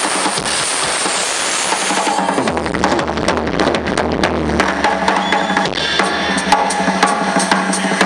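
Live rock band playing drum kit, bass and electric guitar, recorded distorted and muddy by a low-quality camera close to the loudspeakers. A dense drum roll with crashing cymbals fills the first couple of seconds, then about two and a half seconds in a low bass line and guitar notes come in over a steady drum beat.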